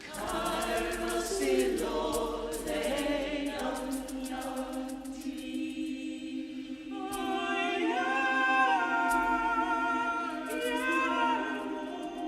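A vocal ensemble singing unaccompanied in harmony: upper voices move and glide between notes over a low note held throughout.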